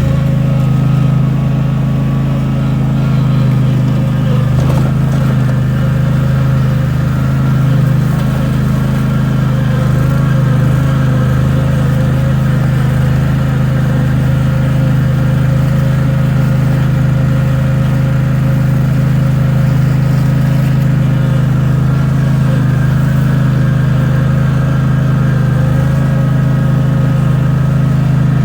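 Zero-turn mower's engine running at a steady speed, with no change in pitch.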